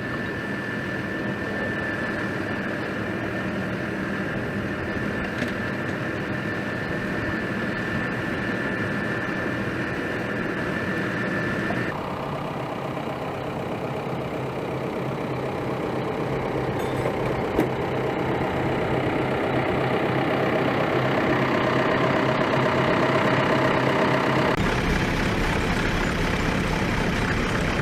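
Vehicle engines running steadily, with a steady high whine over the first part. The sound changes abruptly about twelve seconds in and again near the end.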